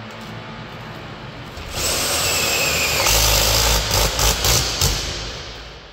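Cordless power drill running for about three seconds, its motor note dropping slightly as it takes the load, with a few uneven surges near the end before it stops.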